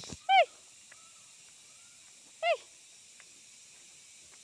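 A dog gives two short yelping barks, each rising and then falling in pitch, about two seconds apart, over a steady hiss of wind on the microphone.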